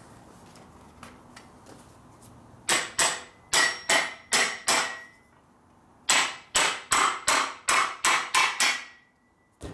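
Hammer blows on a steel homemade swaging tool as it is driven over the end of a motorcycle exhaust head pipe to bring the pipe back to round. The blows come in two quick runs, about seven and then about ten at roughly four a second, with a brief pause between. Each blow rings with a sharp metallic ring.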